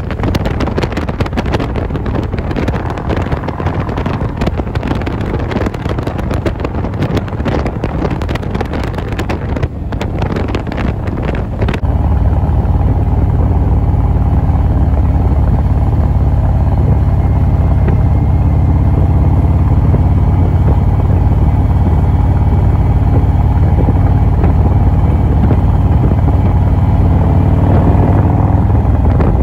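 Wind buffeting the microphone over a touring motorcycle's engine at highway speed. About twelve seconds in, the wind noise drops away and the motorcycle's low, steady engine rumble takes over at a slower street pace.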